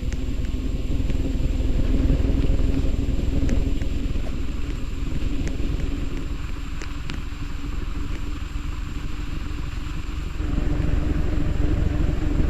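Ceiling fan running: a steady electric motor hum over a low rumble of moving air, with a few faint clicks.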